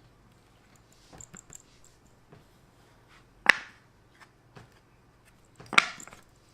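Plastic toy pieces knocking together: a few light clicks, then two sharp knocks a little over two seconds apart.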